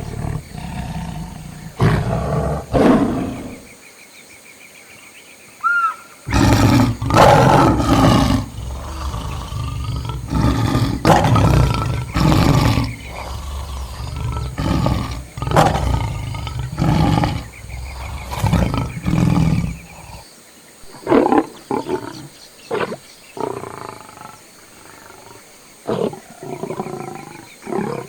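Lions roaring and growling in a long series of loud calls, the densest stretch in the first two thirds, then shorter, scattered ones. Faint bird chirps sound behind them.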